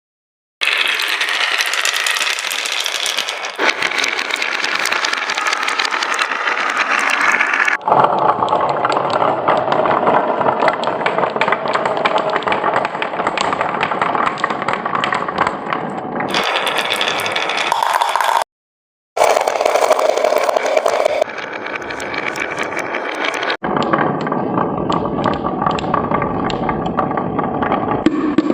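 Many marbles rolling and clattering down a marble run track, a dense stream of small clicks and rattles that changes abruptly at several cuts, with a brief gap of silence about two-thirds of the way through.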